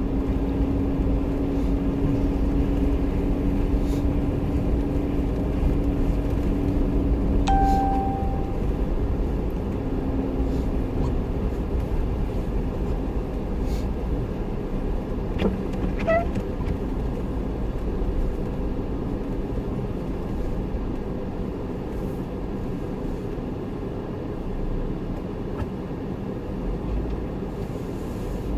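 Motor vehicle running with a steady low rumble and a held hum that stops about eight seconds in, with a short high beep just before it stops.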